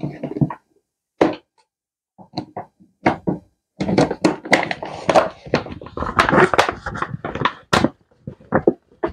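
Clear plastic jar being closed and handled: the screw lid going on, then knocks, taps and rubbing of the plastic in irregular bursts that become busier about four seconds in as the jar is worked and lifted.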